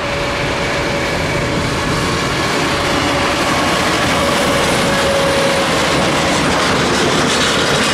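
Twin Pratt & Whitney Canada PW545B turbofans of a Cessna Citation XLS business jet running at low taxi power: a steady rushing noise with a faint steady whine.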